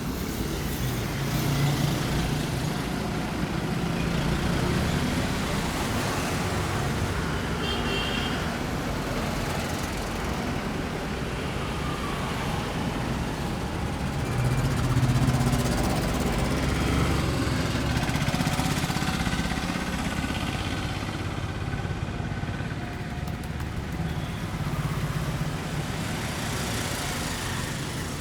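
Steady road-traffic rumble of passing vehicles, with a brief high tone about eight seconds in.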